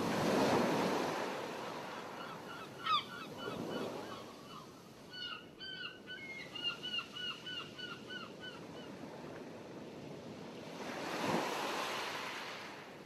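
Water waves sloshing and splashing, surging about a second in and again near the end. In between, a string of short, quick calls from water birds, repeated several times a second.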